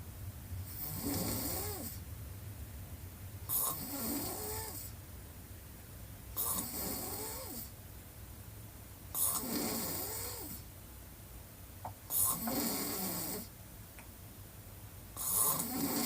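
A woman snoring with her mouth wide open: six snores about every three seconds, each a drawn breath of a second or so whose pitch rises and falls, with a hiss on top. A low steady hum runs underneath.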